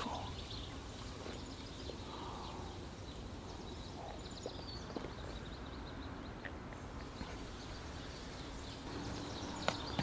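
Quiet forest ambience: a low steady background with faint, scattered bird chirps and a few soft clicks. A low steady buzz sets in near the end.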